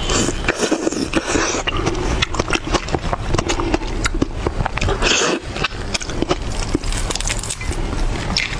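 Shell of a large whole red prawn being cracked and peeled apart by hand close to the microphone: a dense run of crackles, snaps and scrapes.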